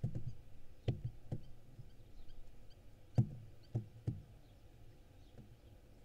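Several dull knocks and thumps inside a wooden nest box as barn owl nestlings shift, scratch and flap on the floor, the loudest about three seconds in. Faint small-bird chirps sound in the background.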